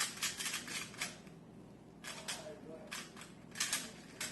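Rubik's Cube layers being turned fast by hand: flurries of rapid plastic clicks, one right at the start lasting about a second, another about two seconds in, and a third shortly before the end.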